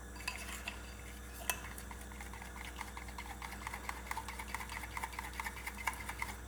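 A utensil stirring thin batter in a bowl, clicking quickly and regularly against the bowl's side as it goes round.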